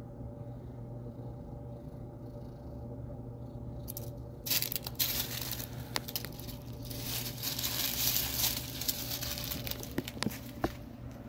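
Dry fallen leaves rustling and crinkling as a cat moves and steps through them, starting about four seconds in, with a few sharp crackles near the end. A low steady hum runs underneath.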